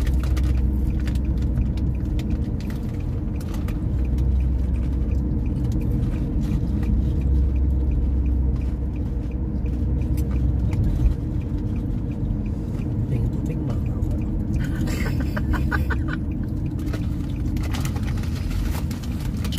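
Steady low rumble of a moving car, engine and tyre noise heard from inside the cabin.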